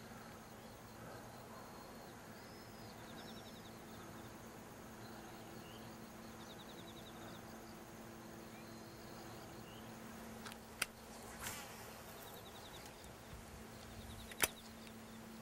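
Faint outdoor ambience: a steady low hum with scattered small high chirps and short rapid trills, broken by a few sharp clicks, the loudest about fourteen and a half seconds in.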